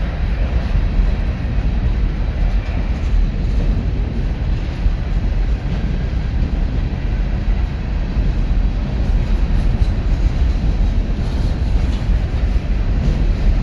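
Empty coal cars of a BNSF freight train rolling past close by: a loud, steady run of steel wheels on the rails.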